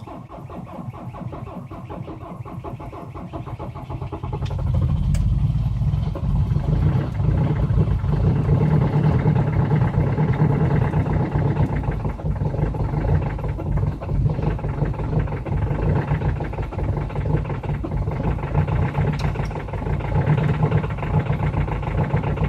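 Diesel engine cold-started at about −30 °C: the starter cranks it for about four and a half seconds, then it catches and runs loudly with a steady clatter.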